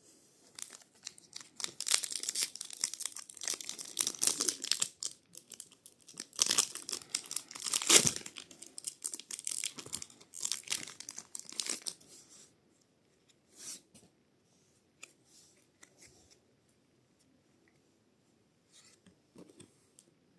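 Foil wrapper of a Pokémon card booster pack being crinkled and torn open, with a sharp rip about eight seconds in. After about twelve seconds only scattered light rustles and ticks remain.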